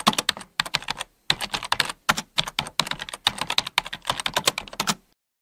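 Keyboard typing: rapid key clicks in runs with short pauses between them, stopping about five seconds in.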